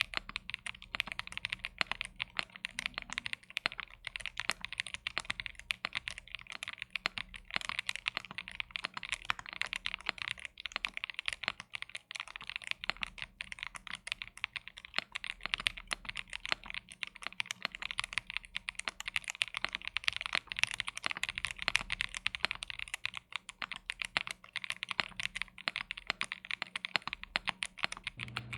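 Fast, continuous typing on a Cidoo V75 mechanical keyboard with CIDOO Matte linear switches and PBT cherry-profile keycaps: a steady stream of keystroke clacks with no let-up.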